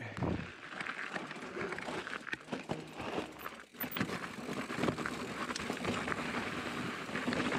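Mountain bike riding over a rocky, gravelly dirt trail: a steady rush of tyre noise crunching over loose stones, with frequent sharp knocks and rattles as the bike hits rocks.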